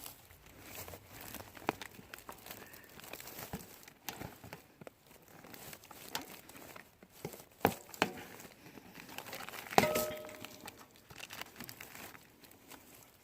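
Plastic snack wrapper crinkling in the hands as it is fitted inside a mountain bike tire as a boot over a torn sidewall, with scattered clicks and rubs of the tire. A brief squeak about ten seconds in.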